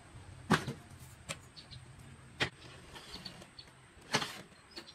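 Steel ruler clacking against pine boards as it is shifted and set down: four sharp knocks, the loudest about half a second in and near the end.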